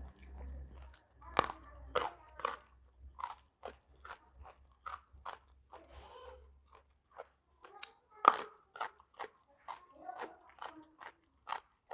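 Chewing raw jengkol (dogfruit) with rice: a run of crisp crunches, about two to three a second, with two loud bites, one about a second and a half in and one just past eight seconds.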